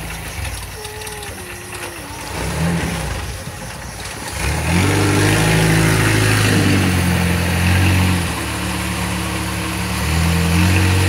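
Long-tail boat engine running low, then throttling up about four and a half seconds in to a steady run. It eases off briefly after about eight seconds and picks up again near the end.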